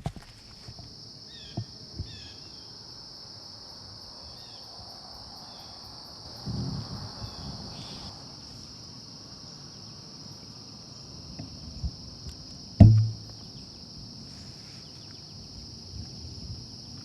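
A steady, high-pitched chorus of insects trilling in the woods. A short rustle comes about six seconds in, and a single loud, dull thump comes near the end.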